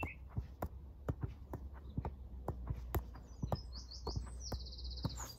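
A football being juggled: a steady run of short taps of the ball off the foot, about three a second. A bird sings a quick trill in the background in the second half.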